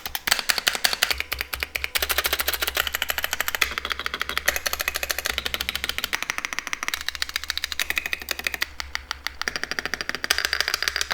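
Fast typing on a computer keyboard: a dense, continuous run of key clicks with only brief lulls.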